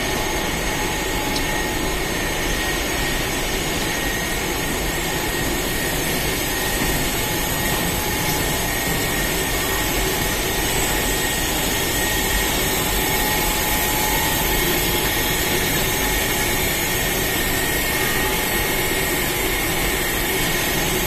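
Automatic cartoning and case packing line running: a steady mechanical whir of motors and conveyors with faint constant whining tones, no distinct strokes or knocks.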